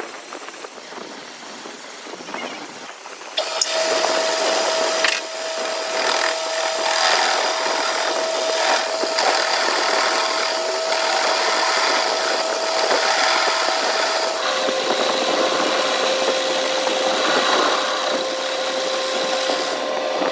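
A workshop power tool working metal, starting abruptly a few seconds in with a harsh grinding noise and a steady whine. The whine steps down a little in pitch about two-thirds of the way through.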